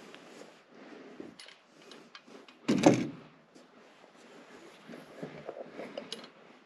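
A wooden purlin board being shifted by hand against the timber framing, with light rubbing and small knocks. One much louder thump comes nearly three seconds in.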